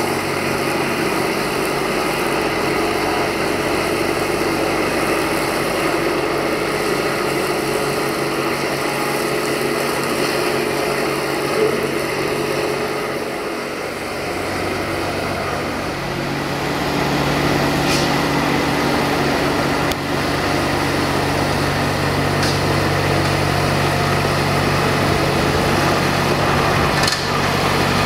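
Universal DTC 445 tractor's four-cylinder diesel engine running steadily as it mows grass with a side-mounted mower. The engine note grows louder about halfway through.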